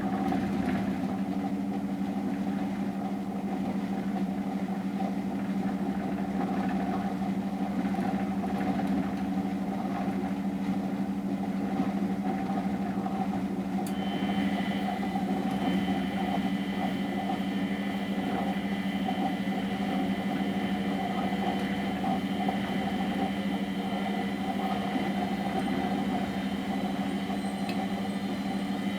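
Miele Professional WS 5426 commercial washing machine running its 95°C boil wash, a steady machine hum. About halfway through a higher steady whine joins in.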